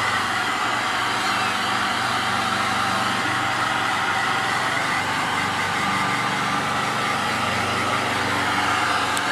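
Hand-held hair dryer running steadily, its motor hum and rushing air constant throughout.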